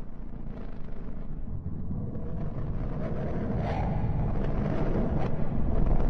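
Deep, noisy rumble of a space-sound sonification (spacecraft data turned into audio), growing slowly louder, with faint crackles running through it.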